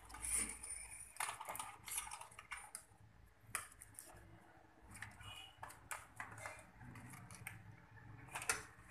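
Irregular small clicks and taps of a screwdriver working screws and parts on a laptop motherboard, with sharper clicks about three and a half seconds in and near the end.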